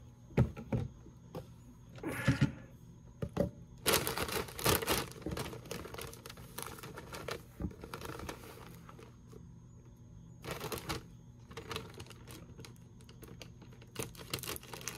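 Clear plastic cereal-bag liner crinkling and rustling in bursts as it is handled, with scattered sharp clicks and knocks. Near the end, scissors begin snipping into the top of the bag.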